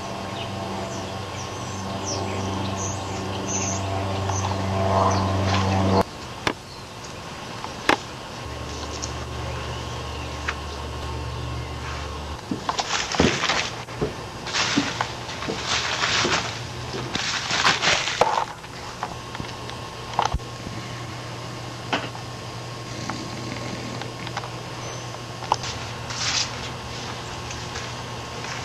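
Low sustained notes, held and stepping in pitch, for about the first six seconds. Then a steady low hum, with a run of short scraping, rustling noises in the middle as hands dig in loose soil.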